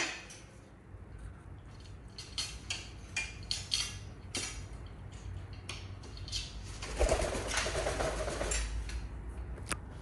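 Pet parrots on a wooden perch stand: scattered light clicks and taps in the first half, then about seven seconds in a low cooing call from one of the parrots that lasts about a second and a half, and one sharp click near the end.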